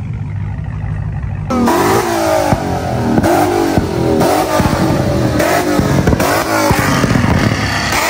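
Ford Mustang engine revved hard again and again through its exhaust: quick blips rising and falling about three every two seconds, with sharp cracks among them. These start abruptly about one and a half seconds in, after a low idling rumble.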